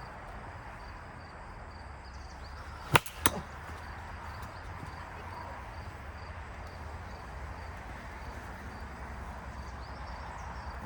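Two sharp plastic cracks about a third of a second apart, about three seconds in: a wiffle ball fouled off a plastic bat, then knocking against something. Steady outdoor background noise runs underneath.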